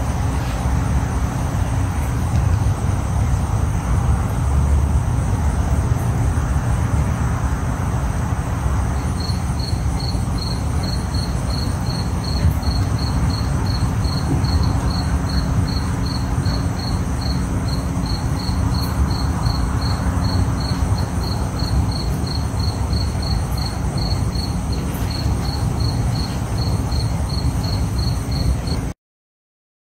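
A cricket chirping steadily, about two to three chirps a second, starting about a third of the way in, over a steady high insect trill and a steady low rumble. All sound cuts off abruptly near the end.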